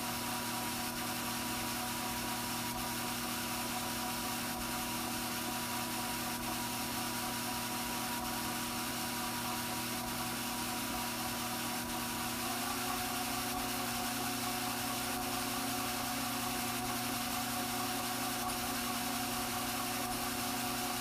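Strauch Mad Batt'r electric drum carder running steadily, its motor giving a constant hum with a whir from the turning drums. About twelve seconds in, the pitch of the motor tone shifts, and it runs on steadily at the new pitch.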